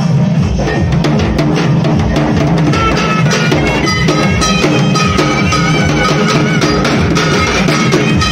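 Drums beaten with thin sticks in a fast, dense, steady rhythm: a shallow drum and a two-headed drum played together. About three seconds in, a high-pitched melody joins over the drumming.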